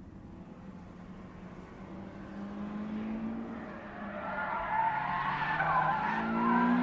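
Sports car engines approaching and revving higher through the gears, growing louder. From about halfway through, tyres squeal as the cars are thrown through a corner.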